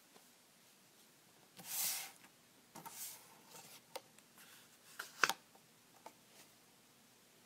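Paper cut-outs being handled: a short rustling slide of paper a second and a half in, followed by several small rustles and taps, the sharpest tap a little after five seconds in.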